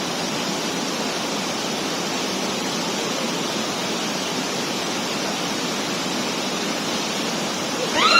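Waterfall rushing in a steady, even roar of falling water. Near the end a person's voice briefly rises above it.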